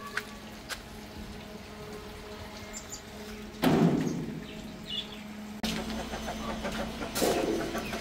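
Aviary birds: a sudden loud flurry of wing flapping about three and a half seconds in, amid scattered chirps and clucks.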